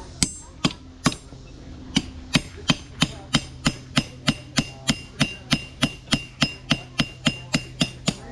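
Blacksmith's hand hammer striking hot iron on an anvil while forging a nail by hand. Three blows, a pause of about a second, then a steady run of about two and a half blows a second, each with a short metallic ring.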